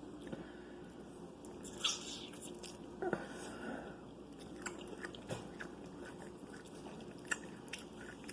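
A person chewing and biting into food close to the microphone, with small wet mouth clicks and a few sharper bites, the loudest about two and three seconds in.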